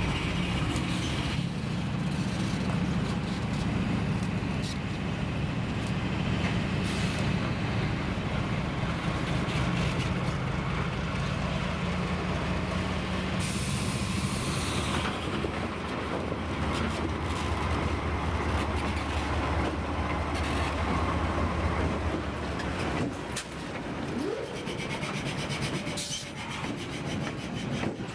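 A railroad locomotive running with a steady low engine hum. A burst of hissing air comes about halfway through, typical of air brakes or air release.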